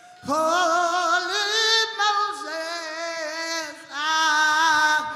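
Male rock vocalist singing into a microphone, holding long notes with vibrato in three phrases, with no drums or other instruments to be heard.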